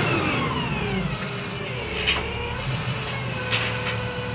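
Propane-fuelled Hyundai forklift engine, its revs falling away after driving the hydraulic mast lift, then running low. A couple of sharp knocks about two and three and a half seconds in.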